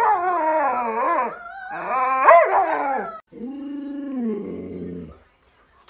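Alaskan malamute howling and 'talking': long wavering calls, then a steadier held howl that stops about five seconds in.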